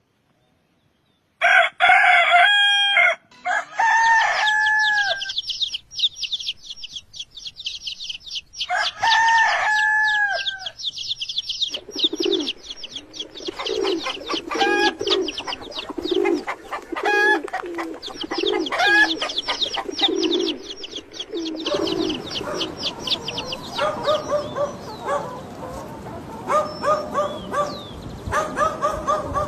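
A rooster crowing three times, over a fast, high-pitched chirping. From about twelve seconds in, low cooing pulses repeat about every second, and further repeated bird calls follow.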